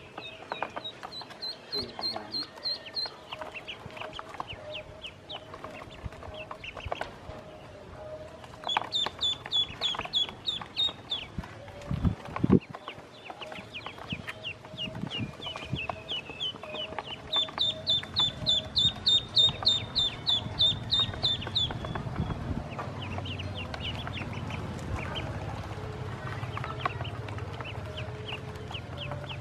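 Ducklings peeping in quick runs of high, repeated calls, several peeps a second, loudest in a long run a little past the middle. A single low thump comes near the middle, and a low steady hum joins in the last third.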